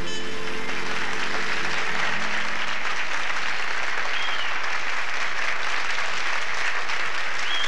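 Audience applause: steady, dense clapping as the last of a jazz tune ends in the first moments. A brief high-pitched tone rises and falls about four seconds in and again near the end.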